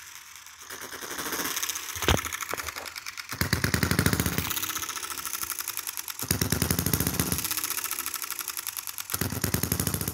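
Small model hit-and-miss gas engine, its valves freshly lapped, running on its own: fast, even ticking while it coasts, broken about every three seconds by a short burst of firing strokes lasting about a second.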